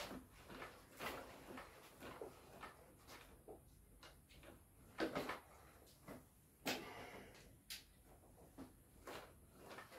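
Faint knocks and short creaks from a Ducati Scrambler's front fork, fitted with Andreani cartridges, as the bike is pushed down on its suspension again and again; the sharpest knocks come about five and six and a half seconds in.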